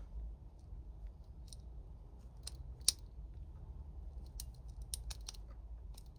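Small metallic clicks and scrapes of a lock pick and tension tool working the pins of a laminated padlock during single-pin picking. The sharpest click comes about three seconds in, with a run of lighter clicks later on, over a low steady hum.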